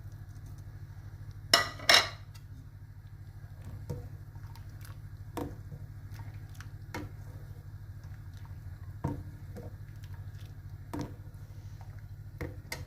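Kitchen utensils clinking and tapping while dry fruits milk is made: two sharp clinks about a second and a half in, then lighter taps every second or two, over a steady low hum.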